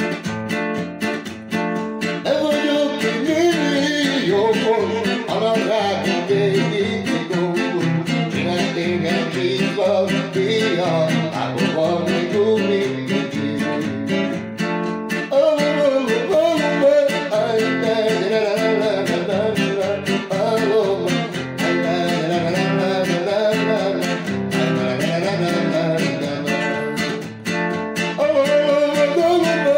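Music played on guitar, with a wavering melody line over steady strummed accompaniment.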